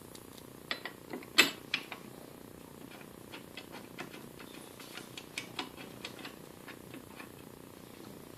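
Small metal parts and hand tools being handled during reassembly of a belt-sander knife grinder: scattered clicks and clinks, the loudest a sharp click about a second and a half in, then lighter ticks, over a low steady background hum.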